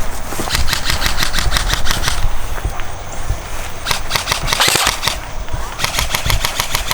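Airsoft rifle firing on full auto in three bursts, about ten shots a second, the middle burst shorter and harsher.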